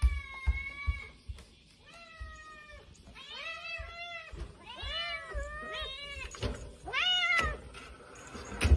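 Kitten meowing repeatedly: about six high calls, the first ones long and level, the later ones rising and falling. A sharp knock comes near the end.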